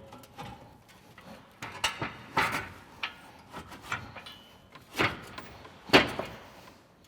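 Several separate knocks and clunks, the loudest two near the end, as a bumper frame with a winch mounted on it is lifted and set back into place on the vehicle's frame.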